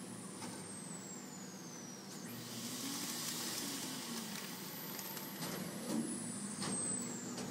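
Vending machine's robotic suction arm working over the freezer bins: a steady motor hum, a burst of air hiss from the vacuum about two seconds in, and a high whine that falls in pitch at the start and again near the end, with a few sharp clicks.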